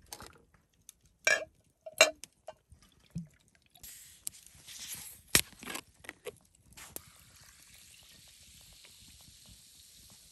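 A few light clinks of ice in a glass mug, then carbonated water poured from a plastic bottle over ice and whisky, followed by a steady high fizz of bubbles in the glass.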